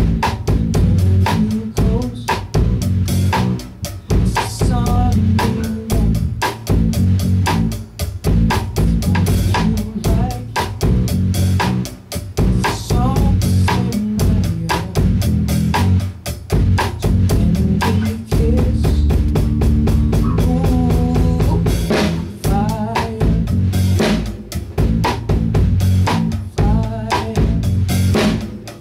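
Live band rehearsal: drum kit, electric bass and electric guitar playing a song together, with a busy drum beat of snare, kick and rimshots on top.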